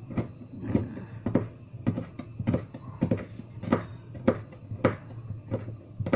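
Kitchen knife dicing a carrot on a plastic cutting board: a steady run of sharp knocks as the blade hits the board, about two a second.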